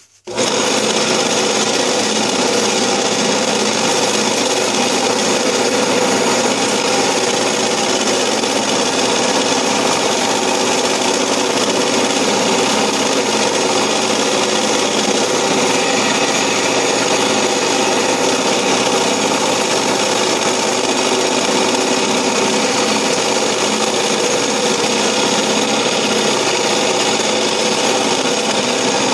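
Old, secondhand Covington wet belt sander switched on and running at a steady, even level, a noisy machine.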